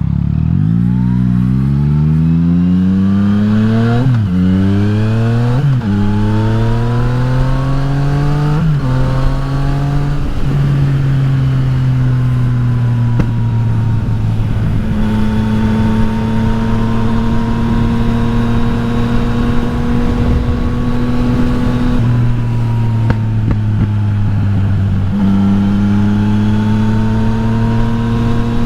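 Yamaha XSR900's inline-three engine with an Akrapovič exhaust, accelerating hard through three quick upshifts in the first nine seconds, then holding a steady cruise with a brief dip in revs later on. Wind rush throughout.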